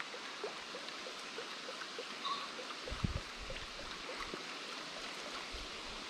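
Quiet outdoor ambience: a steady soft hiss with a run of faint, evenly spaced ticks, about four a second, and a single low thump about three seconds in.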